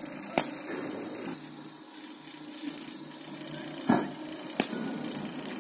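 Cricket bowling machine running with a steady whirring hiss, broken by a few sharp knocks of ball on bat and machine. The loudest knock comes about four seconds in, with another less than a second after it.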